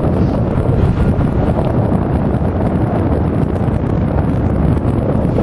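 Rushing wind buffeting the microphone while riding an electric bike along paved trail, a steady loud low rumble.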